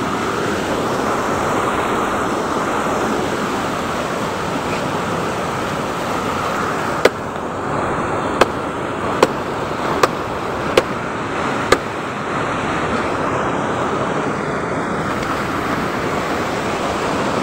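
Rushing river water, a steady loud noise. Partway through, six sharp knocks come about one a second.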